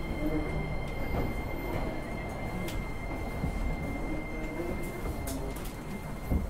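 Interior running sound of a JR East E231 series 1000 commuter train, an unrenewed car: a steady high whine over the rumble of wheels on rail, with a few sharp clicks from the track. A weak air-conditioning unit is running in the car.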